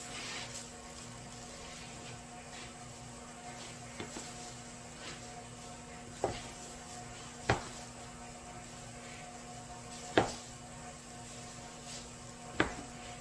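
A steady electrical or machine hum, with five sharp knocks or clacks at irregular intervals, three of them loud.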